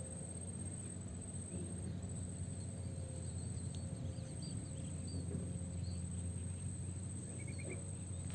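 Steady high-pitched insect trill, with a few short bird chirps around the middle and a quick run of chirps near the end, over a steady low rumble.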